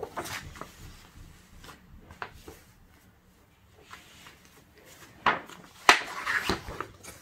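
Folded paper poster rustling as it is handled and folded back up, with sharp paper crackles about five and six seconds in.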